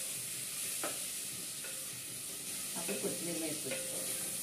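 Wooden spatula stirring food frying in a terracotta clay pot, over a steady sizzle of hot oil, with a few sharp knocks of the spatula against the pot.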